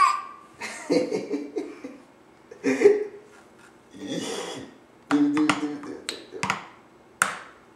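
Small plastic toy drum tapped with plastic mallets in irregular clusters of light strikes, with pauses between them. Brief baby vocal sounds come in among the taps.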